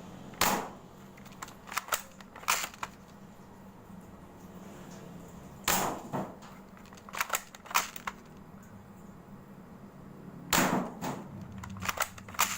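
Spring-powered M24-style bolt-action airsoft rifle, converted from a gel blaster to fire 6mm BBs, firing three shots about five seconds apart. Each shot is a sharp crack followed by a few quicker, fainter clicks.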